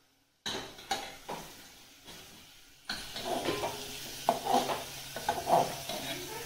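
A metal spoon clinking and scraping in a small metal pan as prawns fry in masala, with sizzling. It begins with a few separate clinks about half a second in, then grows louder and steadier about three seconds in.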